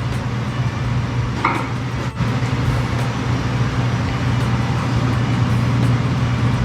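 A steady low hum under a constant noisy rush, with a brief dip about two seconds in.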